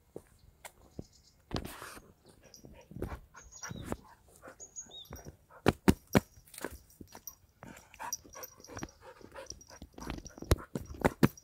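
Husky-type dog making short vocal sounds, among many sharp, irregular steps and knocks on a dirt road.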